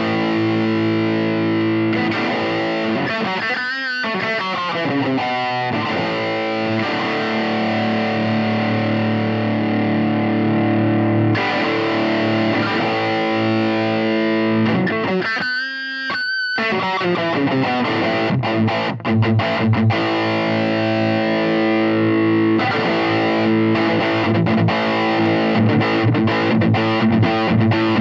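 Electric guitar played through a Joyo Deluxe Cruncher distortion pedal. Distorted chords ring out and sustain, then give way to shorter, choppier strummed chords from about two-thirds of the way through.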